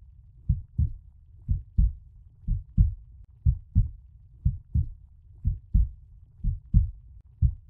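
Heartbeat sound effect: deep paired lub-dub thumps, about one pair a second, over a low steady hum.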